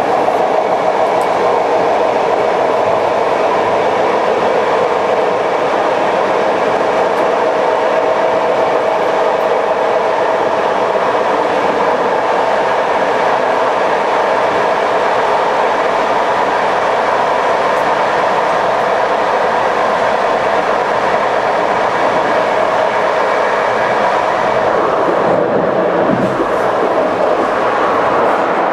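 A passenger train running on the line: the steady rumble and rail noise of the moving train, its tone shifting briefly near the end.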